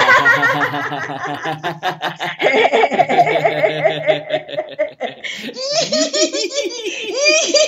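A man and a woman laughing heartily together in a laughter-yoga exercise, with loud open-mouthed ha-ha laughter in quick repeated pulses. There is a brief lull about five seconds in, then quicker, more rhythmic ha-ha laughter.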